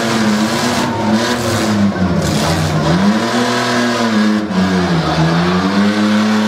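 Demolition-derby pickup truck engines revving hard as the trucks push against each other, the pitch sagging twice under load and climbing again.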